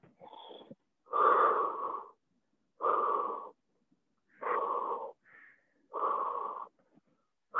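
A man's deep, audible breaths, paced while holding a stretch: a faint breath, then four louder ones, each under a second long and about one and a half seconds apart.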